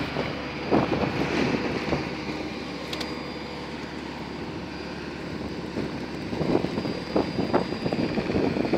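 Steady whining hum from a parked Boeing 737-800 on the stand. A few short bursts of noise come near the start and again near the end.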